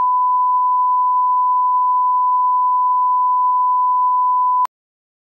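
Steady pure 1 kHz line-up test tone, the reference tone that goes with SMPTE colour bars. It cuts off suddenly with a click about four and a half seconds in.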